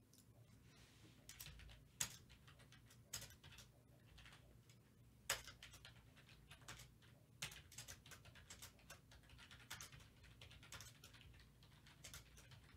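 Faint, irregular clicking of a computer keyboard being typed on, with a few sharper key strikes among them.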